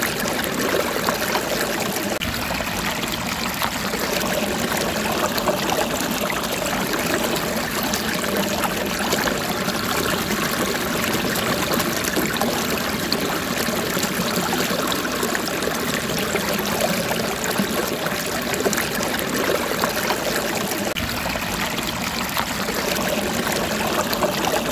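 Steady running water, like a stream trickling, as one even unbroken noise.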